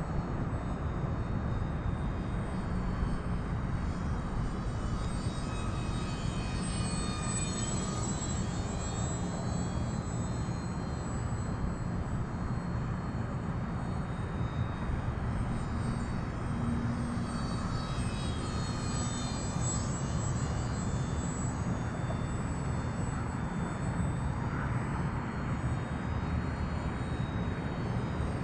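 Electric motor and propeller of an E-flite Pitts S-1S RC biplane whining in flight. The whine rises and falls in pitch twice as the plane passes close, over a steady low rumble.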